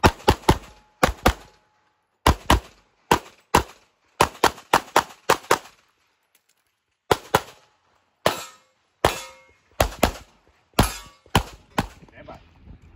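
Semi-automatic pistol fired in rapid strings, mostly quick pairs of shots, about thirty shots in all, with a pause of about a second midway through.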